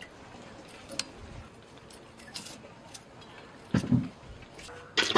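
Light clinks and taps of kitchen utensils being handled, with a sharp tick about a second in and a dull thump about four seconds in.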